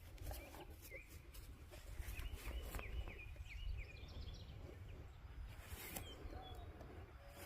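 Small birds chirping, with a quick run of short up-and-down calls about two to three seconds in, over a steady low rumble.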